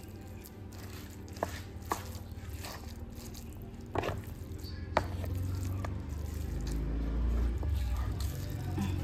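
Wooden spatula and spoon stirring and folding a pan of cooked black sticky rice: soft wet squishing, with a few sharp knocks of the utensils against the pan about one and a half, two, four and five seconds in. A low rumble builds underneath from about six seconds in.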